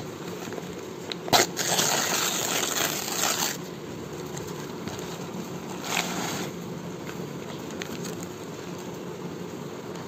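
A sharp snap, then about two seconds of paper tearing and crinkling as a brown paper courier mailer is ripped open, and a shorter paper rustle about six seconds in. A steady low hum runs underneath.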